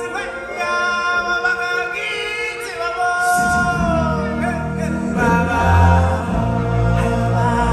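Choir singing long held notes. Drums and bass come in about three and a half seconds in.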